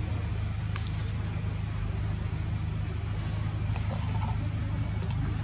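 Steady low hum with a few faint clicks over it.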